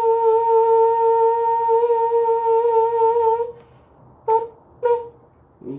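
A person humming a steady high note into the cardboard tube of a homemade tonoscope for about three and a half seconds, setting the salt on its balloon membrane vibrating. Then two short hums at the same pitch, and a lower hum begins right at the end.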